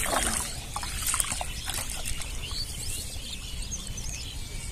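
Small water drips and splashes around a man wading in shallow river water, with small birds chirping from about halfway on, over a steady low rumble.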